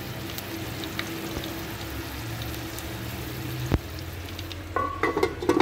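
Long green peppers sizzling in hot oil in a frying pan, with a fine steady crackle. A single knock about two-thirds through and a short louder noise near the end.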